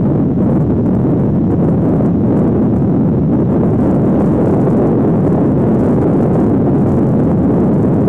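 Wind blowing across the microphone, a loud steady rumble with no clear pitch.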